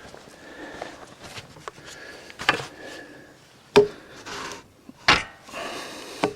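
Wood and metal parts of a chainsaw lumber mill being slid and knocked into place by hand: scraping with several sharp knocks about a second apart.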